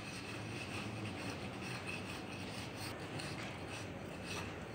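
A flat hand planer scraping in repeated strokes over rammed, damp green molding sand (silica sand with water and binder), levelling the mold surface. The sound is a steady gritty rubbing.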